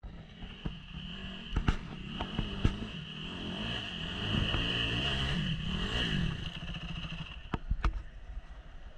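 Dirt bike engine revving as it climbs toward the camera, the note rising and falling and loudest around the middle. The engine stops shortly before the end, followed by a few sharp knocks as the bike goes down on its side.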